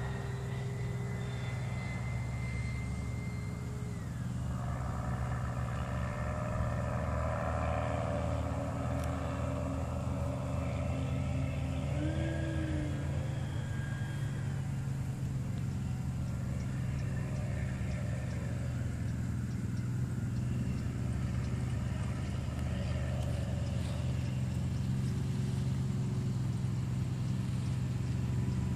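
Radio-controlled B-2 bomber model flying overhead: a thin whine that drops in pitch about four seconds in, then a louder rush, over a steady low hum.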